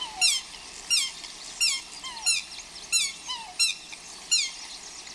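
Swan calling: about seven short, high-pitched squeaky calls that drop in pitch, one roughly every two-thirds of a second.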